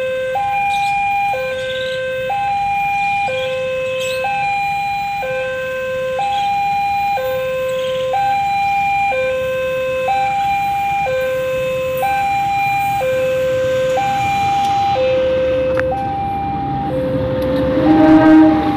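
Electronic two-tone railway level-crossing alarm, alternating steadily between a higher and a lower tone about once a second. Near the end a diesel locomotive with passenger coaches comes close and its running grows loud over the alarm.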